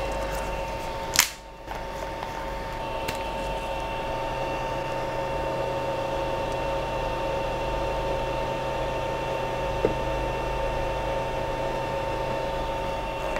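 Steady fan hum with two or three steady whining tones, with one sharp click about a second in.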